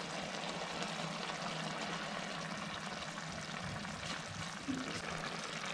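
Chicken curry simmering in an earthenware clay pot, a steady low hiss, with coconut milk poured over it from a bowl in the second half.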